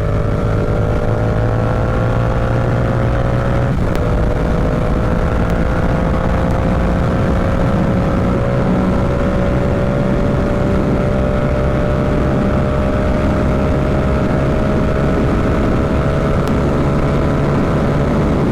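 Yamaha R7's parallel-twin engine running at highway speed, its note climbing slowly as the bike gathers speed, with a brief dip about four seconds in. A steady rush of wind and road noise lies beneath.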